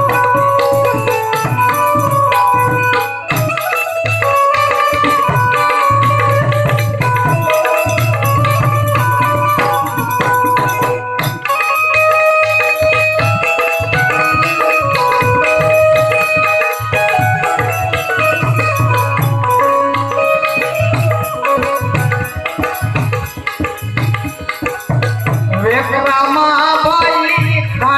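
Gujarati santvani devotional folk music in an instrumental passage: a melodic instrument plays held, stepped notes over a hand drum and jingling percussion. A singing voice comes in near the end.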